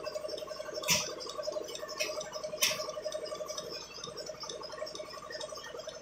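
Milking machine drawing milk from a cow's udder: a steady, fast-pulsing gurgle from the teat cups and claw. Three sharp clicks come in the first half.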